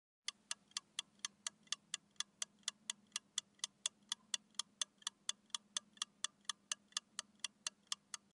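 Clock-ticking sound effect marking a countdown timer, with sharp, even ticks at about four a second. It starts a moment in.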